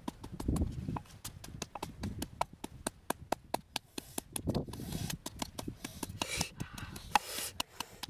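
Wooden pestle pounding red chilies in a wooden mortar: quick wooden knocks, about four a second, with a few heavier thumps as the chilies are crushed. Short rushes of hiss come in the second half.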